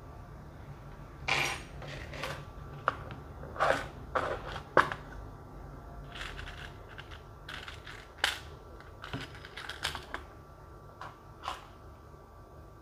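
Hands rummaging in a small plastic box of crochet notions and picking out a yarn needle: irregular clicks and rattles with short rustles, a dozen or so.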